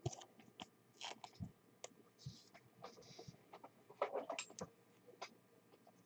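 Faint scattered clicks and rustles of trading cards being handled, with a louder cluster about four seconds in.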